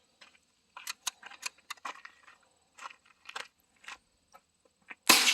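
Faint scattered clicks and rustles of handling, then a single rifle shot about five seconds in, a sharp crack with a short echoing tail that fades away.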